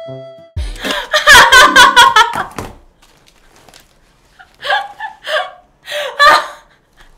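A woman bursting into loud laughter: a run of quick laughs lasting about two seconds, then four shorter bursts of laughter near the end.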